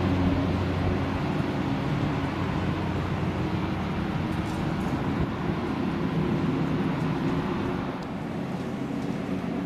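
Twin pusher turboprops of a Piaggio P.180 Avanti running at taxi power: a steady low drone with several steady humming tones. It gets a little quieter near the end.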